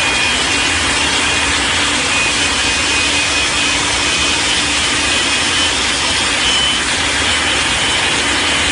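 Jet engine on a VW split-window bus running steadily while the van stands still. It makes a loud, even rush with a thin high whine over it.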